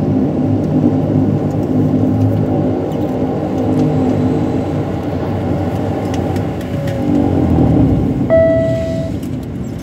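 Cabin noise of a Dash 8 turboprop rolling slowly on the runway after landing: the engines and propellers run with a steady low drone, which eases and drops in pitch about seven seconds in. A short single tone sounds near the end.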